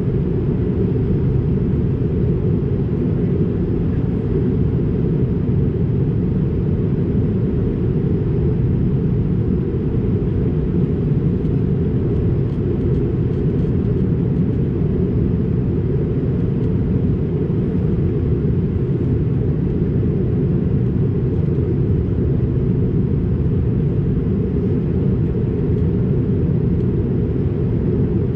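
Steady cabin noise inside an Airbus A220-300 in flight: an even, low rumble of the engines and airflow that does not change.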